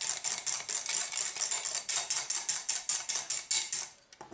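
Wire whisk beating a runny batter in a glass jug, its wires clicking rapidly against the glass at about six strokes a second to work out the lumps. The whisking stops shortly before the end.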